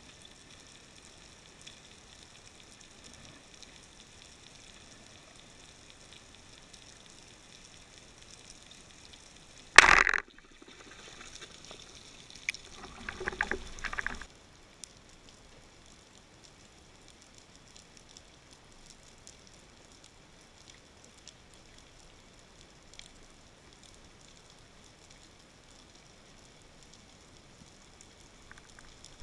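Underwater sound: a faint steady hiss, broken about ten seconds in by one sharp, loud crack, then a couple of seconds of bubbling.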